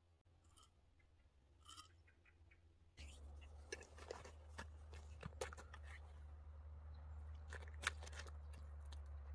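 Irregular crisp crunches and clicks of boots and handling on snowy lake ice, starting about three seconds in over a low steady rumble; the first few seconds are nearly quiet with a couple of faint ticks.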